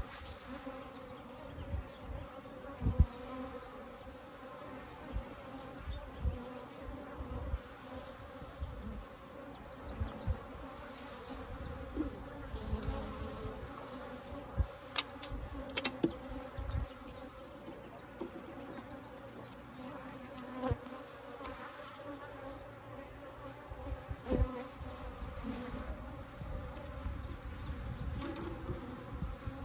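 A colony of Africanized hybrid honeybees buzzing steadily around their opened hive, with scattered short knocks, the loudest about three seconds in and a few more around the middle and two-thirds of the way through.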